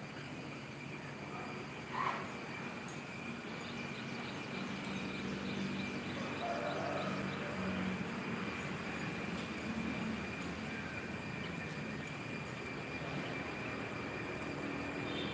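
Steady rain noise, an even hiss, with a continuous high-pitched whine over it.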